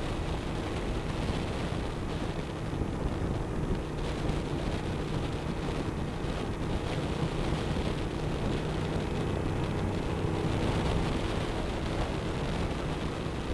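Wind rushing over the camera on a 2007 Suzuki SV1000S cruising at steady highway speed, with the bike's V-twin engine running underneath at an even pitch.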